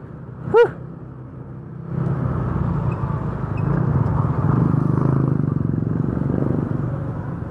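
A single-cylinder Yamaha Mio One scooter engine running while the rider moves along a wet road, with wind and tyre noise that grows louder about two seconds in as the scooter speeds up. Near the start there is a brief, loud yelp from a voice.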